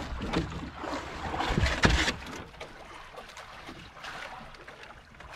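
Knocks and rustling from handling a handline and its spool in a small boat, with the loudest knock a little under two seconds in; after that only a quieter, steady background.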